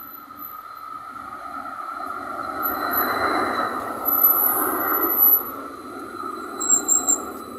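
BOGESTRA low-floor tram rolling past close by on street track, with a steady whine over the running noise. It grows louder to a peak about halfway through, with brief high wheel squeals around then and again near the end, before easing off.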